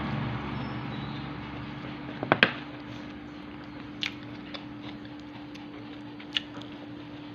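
A person eating: chewing, with a few sharp clicks of biting or utensils, the loudest two close together about two and a half seconds in.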